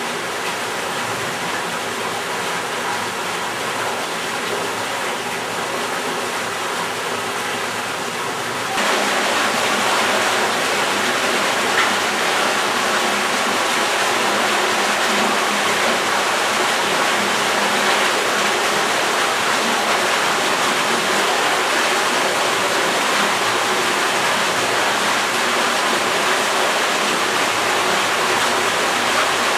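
Steady rushing noise, with no distinct events, that steps up in level about nine seconds in.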